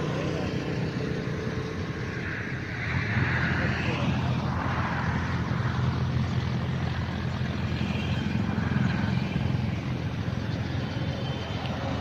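Steady engine and road noise heard from inside a moving vehicle, a low hum under an even rush. It swells louder from about two and a half seconds in and stays up for a couple of seconds.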